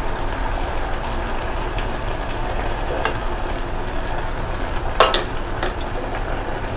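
Moringa leaves cooking in a metal pot of water with onion and tomato, with a steady hiss as the pot heats and steams, while a steel spoon stirs them. The spoon clicks against the pot about three seconds in and again, loudest, about five seconds in.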